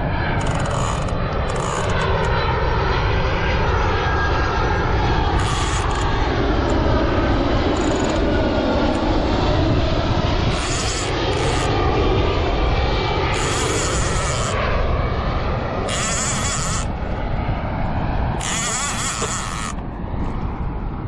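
Jet airliner flying low overhead, its engine noise rising and falling in pitch as it passes, with wind buffeting the microphone.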